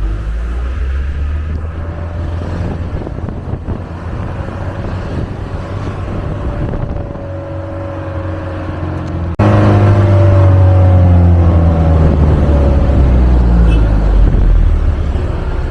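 Minibus engine running, heard from inside the vehicle. About nine seconds in it suddenly gets much louder and its pitch rises and falls as the engine revs.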